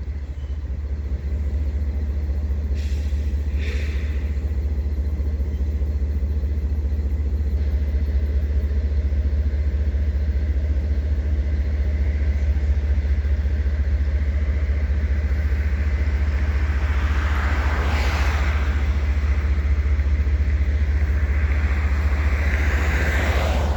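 Union Pacific freight train getting under way, its diesel locomotives running with a steady low rumble. Louder rushing passages swell up about eighteen and twenty-three seconds in.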